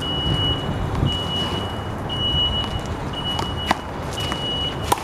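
A vehicle's reversing alarm beeping in one steady high tone about once a second over low traffic rumble. Two sharp smacks of a handball being struck come late on.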